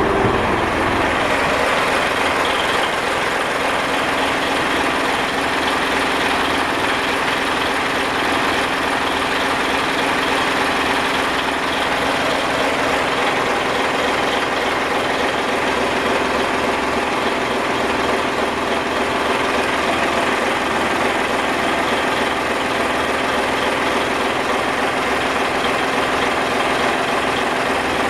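Yanmar 6KY-ET marine diesel engine running steadily at an even speed.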